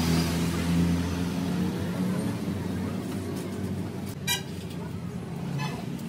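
Road traffic noise: a motor vehicle's low hum fading away over the first seconds, then a short high toot about four seconds in and a fainter one near the end.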